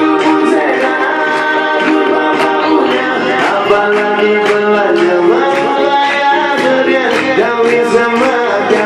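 A man singing live into a microphone over Korg Triton keyboard accompaniment with a steady beat.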